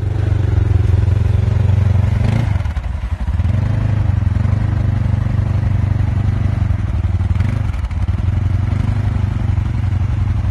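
ATV engines running: a close one rumbling steadily at idle, with the engine note dipping and picking back up about two and a half seconds in and again near eight seconds as an ATV is ridden through wet sand.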